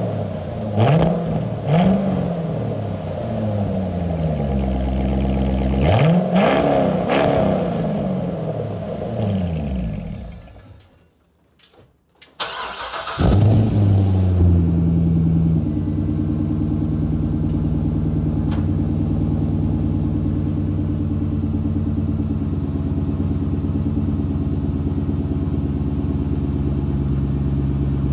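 2013 Corvette C6 V8 on its factory quad-tip exhaust, idling and blipped up in several revs that rise and fall, then fading to a short quiet gap. The car then starts on a custom twin-tip exhaust, flares up, and settles into a steady idle.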